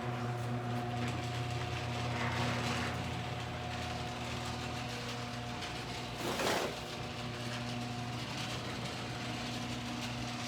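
A machine running with a steady hum, with a short whoosh about six and a half seconds in.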